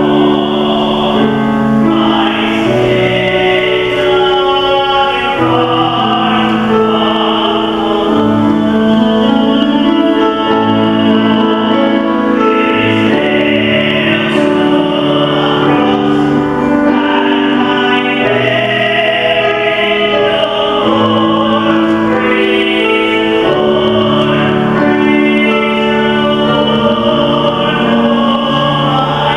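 A choir singing a hymn in long held notes, with light keyboard accompaniment.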